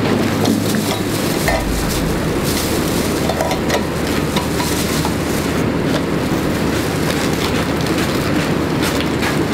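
A steady rushing rumble with a low hum, over faint light taps of a kitchen knife on a wooden cutting board as raw fish fillets are sliced.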